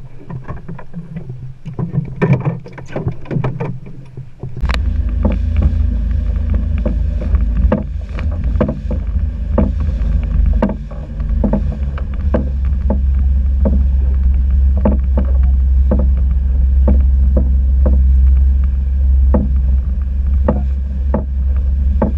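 Small boat running over open sea: a loud, steady low wind rumble on the camera's microphone, with the hull slapping the waves in short knocks about every second or less. For the first four and a half seconds, before the sound cuts in abruptly, there are only quieter, uneven knocks.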